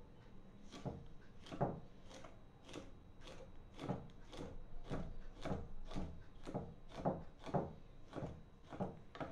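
Kitchen knife scoring a skinned piau fish fillet in thin cuts, each stroke knocking on a wooden chopping block, about two strokes a second.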